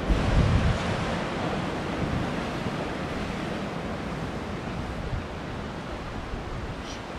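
Ocean waves surging and washing over a rock ledge, with wind on the microphone; a louder surge comes in the first second.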